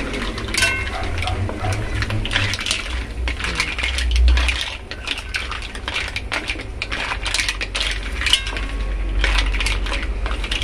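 Green mussel shells clattering against each other and a stainless steel pan as they are stirred with a wooden spatula: a dense run of clicks and clinks. A low thud about four seconds in.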